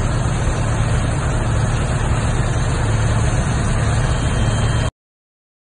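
Steady, loud engine drone with a strong low hum from idling vehicles or machinery on an airport apron. It cuts off suddenly near the end.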